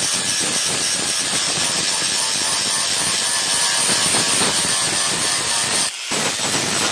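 Electric angle grinder grinding the edge of a hand-forged curved steel wood-cutter blade: a steady, loud grinding hiss over the high whine of the motor. It cuts out for a moment about six seconds in, then carries on.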